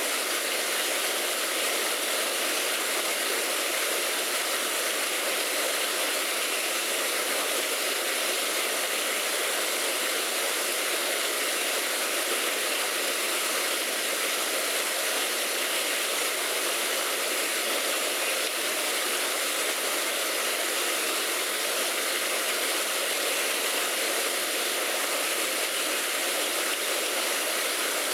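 Steady, even rushing noise with no breaks or separate events, bright and hiss-like.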